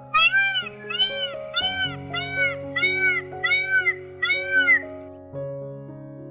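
Seven short, high animal calls in quick succession, each rising then falling in pitch, over steady background music.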